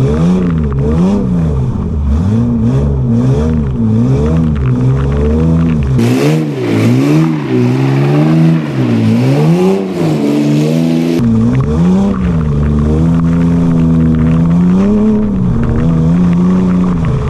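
BMW E36 328i straight-six engine in a stripped-down drift kart, revs rising and falling over and over as it is driven sideways. For about five seconds midway the deep rumble drops away under a hiss, and near the end the revs hold steadier for a few seconds.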